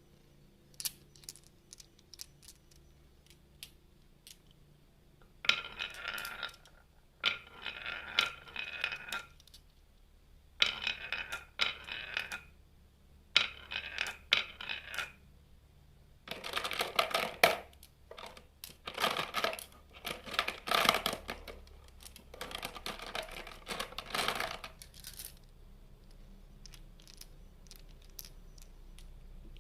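Marbles rolling and clattering down a wooden HABA marble run. A few scattered clicks come first, then a string of rolling, rattling runs, each a second or two long, busiest in the middle, before it thins back to sparse clicks near the end.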